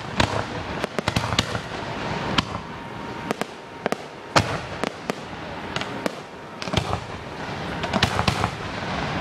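Aerial fireworks bursting in the sky: a string of sharp bangs and crackles, irregularly spaced, with the loudest bang about four seconds in and another cluster near the end.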